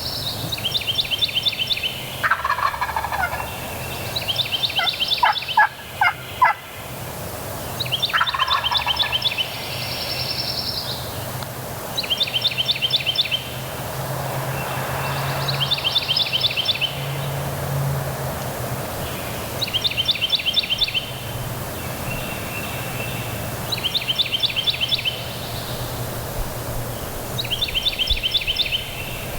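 Wild turkey gobbling over and over, a rattling gobble about every three to four seconds, over steady wind noise.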